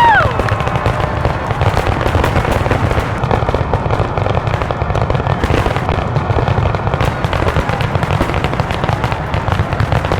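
Fireworks barrage, a dense run of overlapping crackles and pops with no break.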